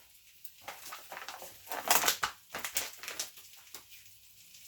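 Kitchen handling noises while cooking: a run of irregular clicks, small knocks and crinkling, busiest in the middle.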